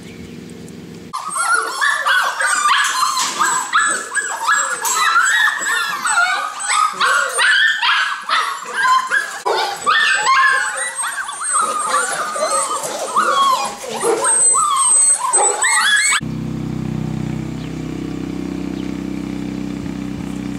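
A crowd of golden retriever puppies whining and yelping all at once, a dense chorus of overlapping high squeals starting about a second in. It cuts off abruptly about fifteen seconds later, giving way to a steady low drone.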